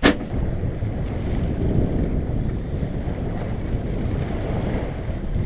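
Wind buffeting the microphone over the steady rush of water along a sailboat's hull while it is under way.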